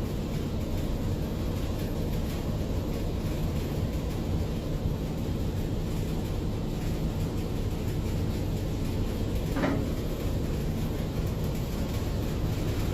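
Steady low droning rumble with a faint even hum, typical of machinery or ventilation running in a ship's engine room. A brief squeak cuts through about ten seconds in.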